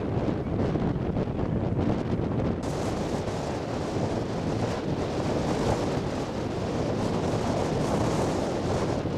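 Strong wind buffeting the microphone over the steady rush of rough sea waves.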